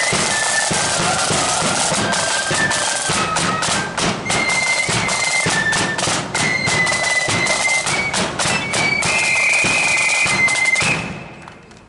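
Marching flute band playing a tune: flutes carry a high melody over fast side-drum strokes and a bass drum. The playing stops about eleven seconds in.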